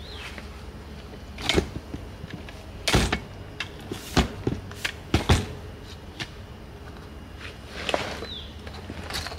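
A Thule Tepui rooftop tent and its travel cover being handled on a trailer: a series of knocks and fabric rustles, busiest between about three and five and a half seconds in, over a steady low hum.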